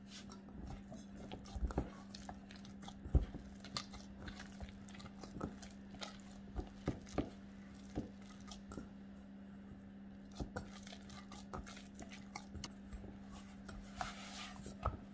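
Hands kneading a soft, oiled flour dough in a stainless steel bowl: irregular squelches and taps as the dough is pressed and folded. A steady low hum underneath.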